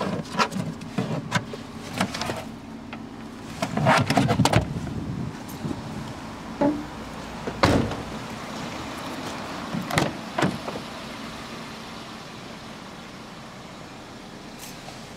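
Knocks and clicks from handling a small hatchback's boot and doors. One sharp thump about halfway through, as the camera passes from the boot to outside the car, fits the tailgate shutting. A couple more knocks follow, then only a faint steady hiss.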